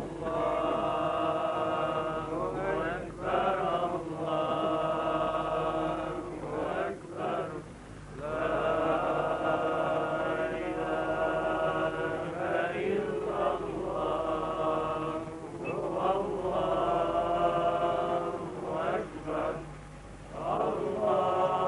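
Voices chanting an Islamic funeral recitation in long, held melodic phrases, about six of them with short breaks between.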